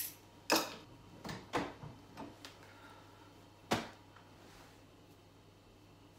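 A series of sharp clicks and knocks, about six in the first four seconds: small objects being set down on a counter and a room door being shut.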